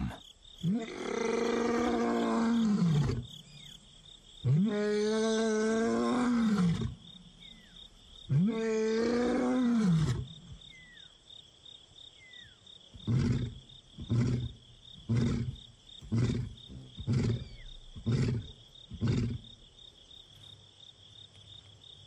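Male lion roaring: three long, deep moaning roars, then a run of about ten short grunting calls that trail off. This is the lion's full roaring bout, a long-distance contact call to an absent companion.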